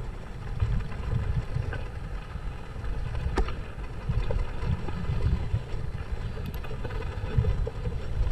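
Mountain bike riding over a rocky dirt trail, heard through a handlebar-mounted action camera: steady wind rumble on the microphone with rattling from the bike and a sharp knock about three and a half seconds in.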